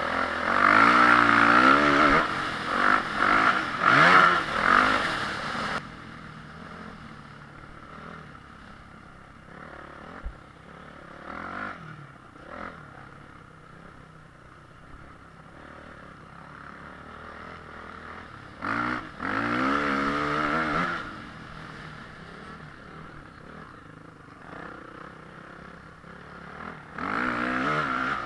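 Motocross motorcycle engine revving hard with rising pitch sweeps as it climbs through the revs, then dropping to a quieter steady running sound. It revs up again briefly about two-thirds of the way in and once more near the end.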